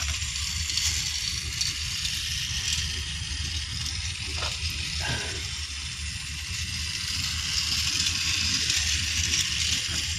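Battery-powered toy train running around a plastic track: a steady whirring rattle from its small motor, gears and wheels, with a couple of light plastic clicks about halfway through.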